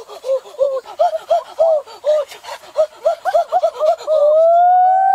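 A child giggling in quick high-pitched bursts, then about four seconds in a long drawn-out high cry that rises and falls.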